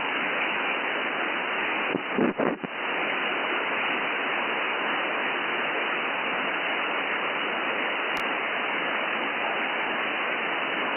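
Steady hiss of an SDR receiver's audio output tuned to an empty CB channel, with no signal coming through. About two seconds in the hiss briefly breaks and surges, consistent with the receiver being switched over to lower sideband, and a single faint click sounds about eight seconds in.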